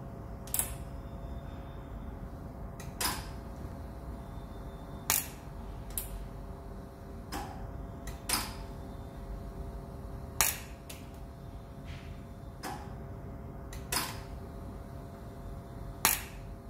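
About ten sharp clicks from a welding machine's control panel, irregularly spaced one to two seconds apart, as its buttons and knobs are worked. A steady hum from the machine runs underneath.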